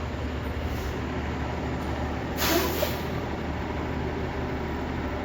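Fire engine's diesel engine running steadily, with a short hiss of released air from its air brakes about two and a half seconds in.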